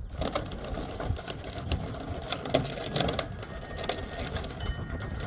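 Rapid, irregular clicking, scraping and rattling in a sheet-metal rain downspout while it is being worked apart to free a trapped bird.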